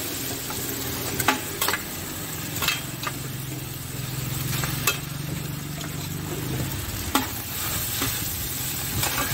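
Rice noodles, egg and tofu sizzling in oil on a large shallow wok while a metal spatula stirs and tosses them, with a handful of sharp clanks as the spatula strikes the pan.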